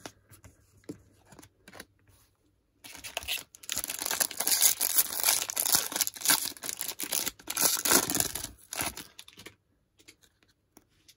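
A plastic-wrapped 46-card Topps Update jumbo pack of baseball cards being torn open, the wrapper ripping and crinkling for several seconds. The tearing starts about three seconds in and dies away near the end, leaving a few faint ticks.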